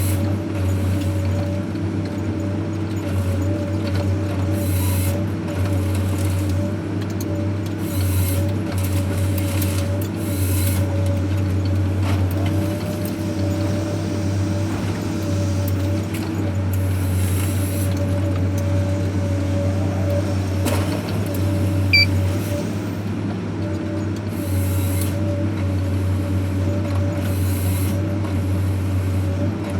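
Forest-harvesting machine's engine running steadily with a low drone and a constant whine, with short bursts of hiss on and off and a brief sharp sound about twenty-two seconds in.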